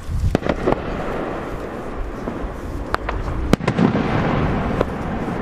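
Fireworks display: a run of sharp bangs and crackles, several close together about half a second in and more between three and four seconds in, over a continuous low rumble of bursts.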